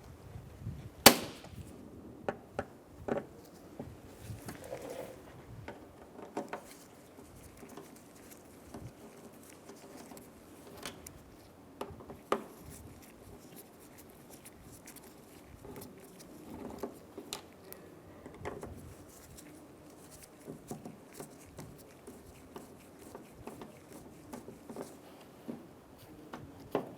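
Irregular clicks and knocks of hand tools on metal as the door latch's T27 Torx mounting screws are loosened and the latch is worked free inside the door. A single sharp knock about a second in is the loudest.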